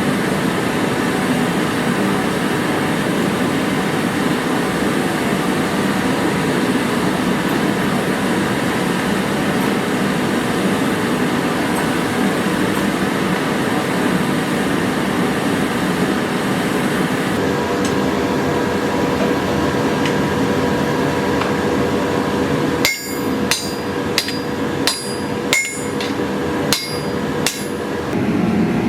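Steel being forged with a hand hammer on an anvil: about seven ringing metal blows in the last few seconds. Before them is a steady rushing noise.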